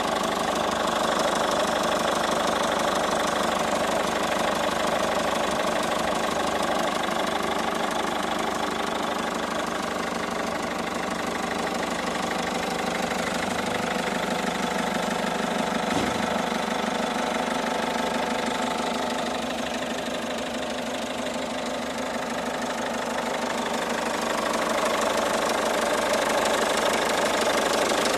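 Peugeot 207 HDi diesel engine running steadily, with one sharp click about halfway through.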